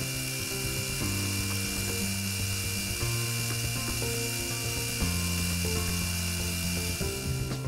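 A small metal lathe running with a steady high tone and hiss while a threading tool cuts grip grooves into a spinning brass rod. Soft background music with slowly changing held notes plays under it.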